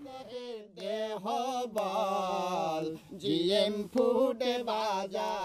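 A man singing a chant-like melody in long held notes with wavering ornaments, phrase by phrase with short breaks between.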